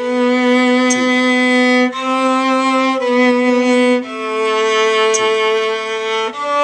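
A viola playing a slow, smooth line of long bowed notes, each held for one to two seconds before moving to the next pitch.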